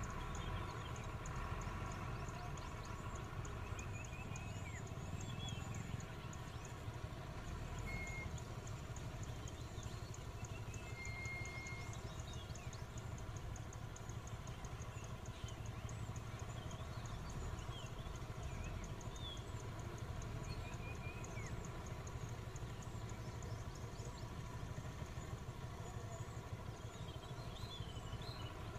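Low, steady rumble of idling vehicle engines, with scattered short bird chirps over it.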